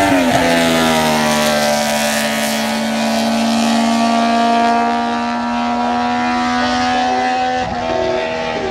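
Classic racing motorcycle passing at speed, its engine note falling as it goes by. Then a steady, high engine drone from motorcycles running on around the circuit.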